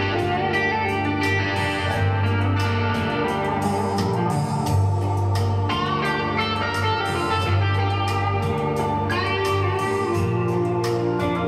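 Guitar music with deep, sustained bass notes, played back from a CD through a hi-fi system: an Arcam FMJ CD17 CD player and an Audiolab 8200A integrated amplifier driving floor-standing loudspeakers.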